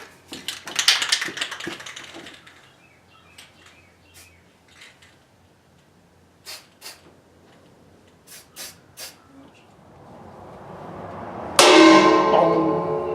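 Clicks and knocks of tools and metal parts being handled, then near the end a sudden loud sound with several ringing tones that die away slowly.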